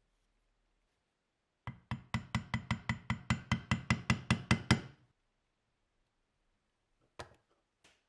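Rapid, evenly spaced metal-on-metal taps, about five a second for some three seconds, of a small hammer on a pin punch set against a Zippo lighter's steel case held in a bench vise. Two lighter single knocks follow near the end.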